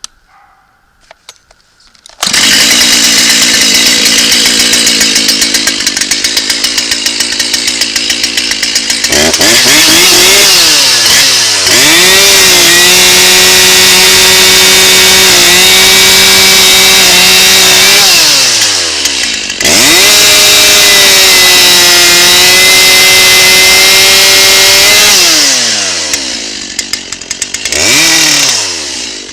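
Dolmar two-stroke chainsaw catching about two seconds in and idling, then run up to full throttle twice for about six seconds each, bucking red oak with a freshly sharpened chain. A short rev comes near the end.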